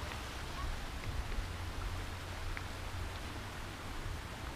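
Steady low-level outdoor background noise: a low rumble under an even hiss, with a few faint ticks and no distinct event.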